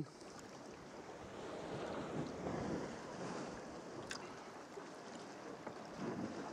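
Sea water sloshing and splashing around a sea kayak as it is paddled across a choppy bay, with wind buffeting the microphone. The splashing swells twice, and there is one sharp click about four seconds in.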